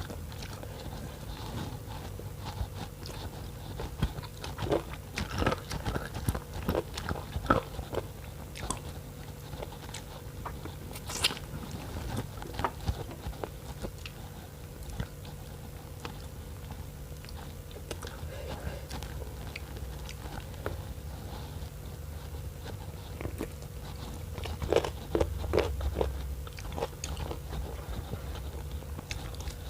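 Close-up eating sounds: chewing, mouth smacks and scattered clicks from a person working through spicy noodle soup with bones, with a louder cluster about 25 seconds in. A steady low hum runs underneath.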